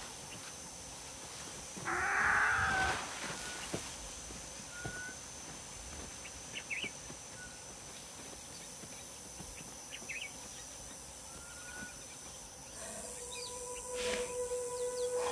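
Natural outdoor ambience with wild birds: short rising chirps repeated every few seconds, and one loud harsh call about two seconds in. Steady music tones come in near the end.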